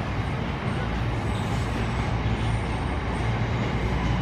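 Diesel train engine running with a steady low hum.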